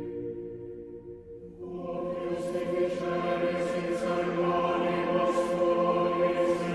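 Background music of slow, held choir-like chords. The sound thins out about a second in, then a fuller chord swells in and holds.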